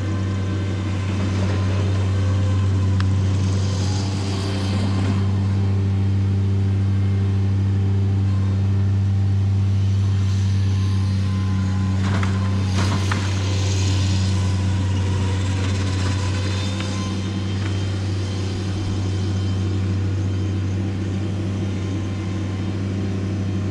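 An engine running steadily at constant speed with a low, even hum, most likely a piece of landscaping equipment on the job, with a few brief scraping or rustling noises over it around 4 seconds in and again around 12 to 14 seconds.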